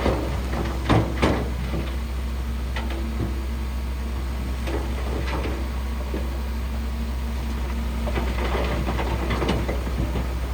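Shantui crawler bulldozer's diesel engine running steadily under load, with intermittent metallic clanks, the two loudest about a second in.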